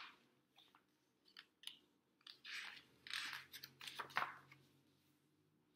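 Page of a glossy paperback book being turned by hand: a run of faint paper rustles and slides with light clicks, loudest around three to four seconds in.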